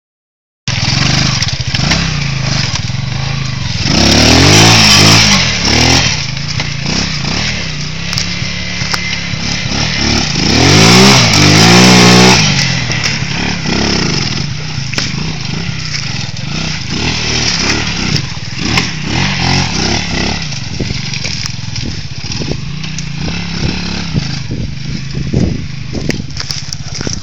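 Bashan 200cc quad bike's single-cylinder four-stroke engine revving as the ATV drives through mud, with two loud throttle surges about four and eleven seconds in. After them it runs lower and a little fainter as the quad pulls away.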